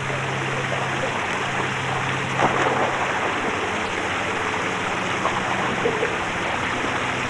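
Steady rushing and splashing of swimming-pool water, with one brief louder splash about two and a half seconds in and a steady low hum underneath.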